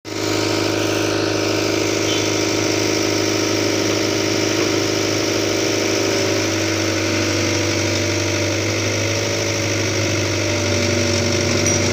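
Diesel engine of a Caterpillar 308B mini excavator idling steadily.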